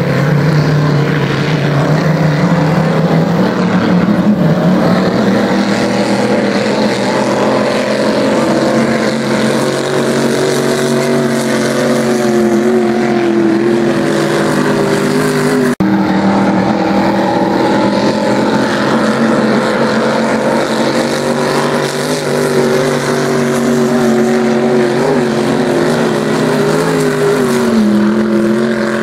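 Vintage racing hydroplane's big-block engine with open exhaust, running hard at speed as a loud, steady drone whose pitch wavers slightly. There is a brief break about halfway through, after which it carries on.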